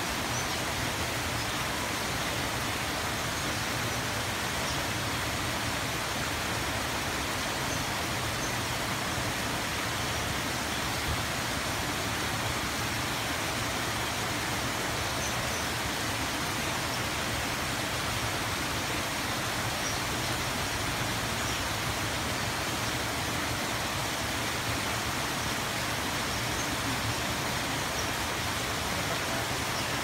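Steady rush of a small artificial waterfall, with a few faint high chirps now and then.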